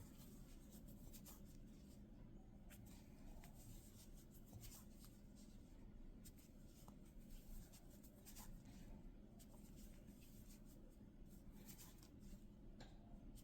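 Faint scattered clicks and scratchy rustles of a crochet hook working yarn in single crochet stitches, over a low steady room hum.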